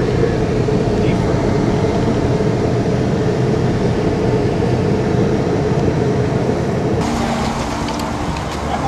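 Steady low rumble of car engine and road noise, heard from inside a vehicle's cabin. About seven seconds in it cuts off to a thinner, hissier background with light crackles.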